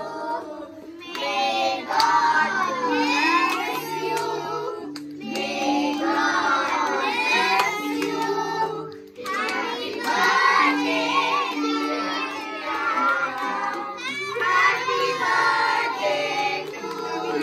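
A group of children and adults singing a birthday song together, clapping along.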